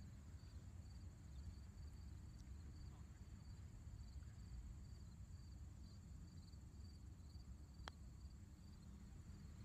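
Crickets chirping in a regular pulsing rhythm, with a steady higher insect buzz and a low wind rumble. Near the end comes a single sharp click: a golf club striking the ball.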